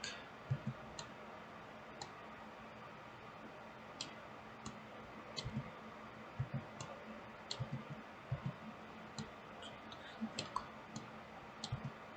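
Computer mouse clicking at irregular intervals, faint and sparse at first and more frequent after about five seconds, over a low steady room hum.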